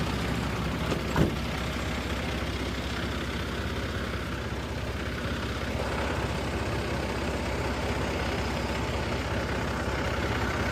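Concrete mixer truck engine running steadily, with a single sharp knock about a second in.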